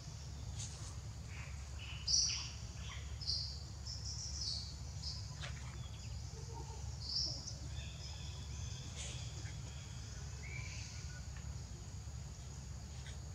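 Several short, high bird chirps, the loudest about two seconds in and others around three, four and seven seconds, over a steady high insect buzz and a low rumble.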